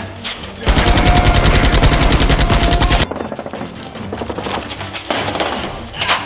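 Automatic gunfire: a very rapid burst of machine-gun fire starts about a second in, runs for about two seconds and cuts off sharply, followed by quieter rapid shots.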